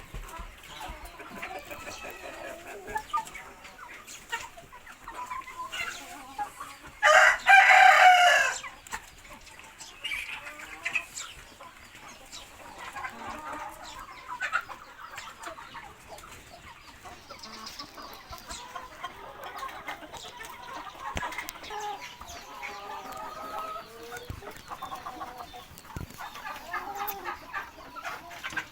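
A flock of chickens clucking continuously, with one loud rooster crow about seven seconds in.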